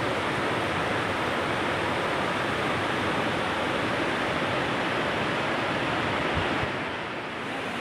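Swollen, muddy river rushing fast over rocks: a steady wash of water noise that eases slightly near the end.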